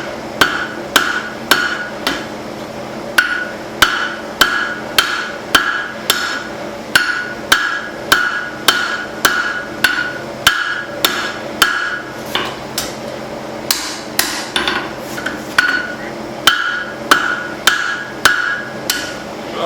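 Hand hammer forging hot leaf-spring steel on an anvil: sharp blows about two a second, many with a short metallic ring, broken by a few brief pauses.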